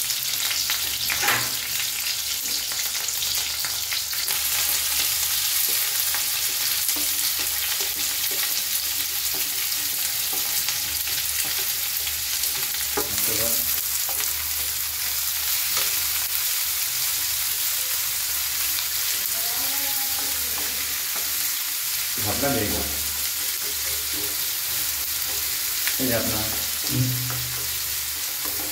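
Hot oil sizzling steadily in a non-stick wok as green chillies and then sliced onions fry. A few short scraping sounds of stirring come through the sizzle.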